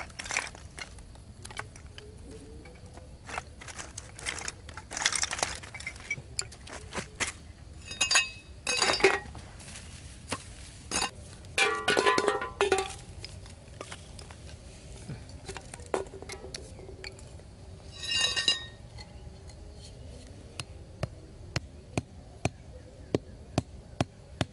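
Scattered taps, knocks and scrapes of hand work on sandy ground, as bamboo sticks and tools are handled and dirt is scraped away, with a few brief ringing clinks among them.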